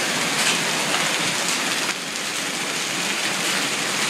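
Hail falling hard on the lawn and pavement: a steady, dense hiss of hailstones striking the ground, easing slightly about two seconds in.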